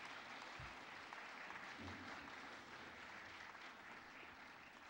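Faint, steady applause from an audience in a hall.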